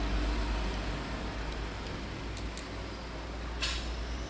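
Steady low hum of the room, with a few faint clicks and one short scrape near the end as small pump parts and a screwdriver are handled.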